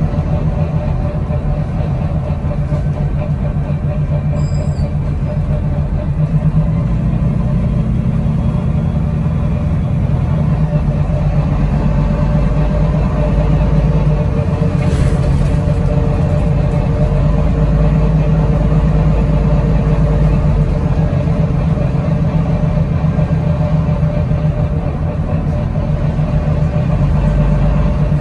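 Engine and running noise of a double-decker bus heard from inside the upper deck: a steady low drone that swells and eases a little as the bus drives.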